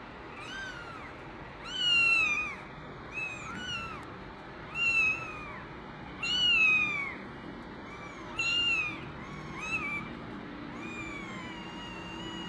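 Kittens mewing repeatedly: about ten short, high-pitched, rising-and-falling mews, the loudest around 2, 5, 6.5 and 8.5 seconds in, over a faint steady low hum.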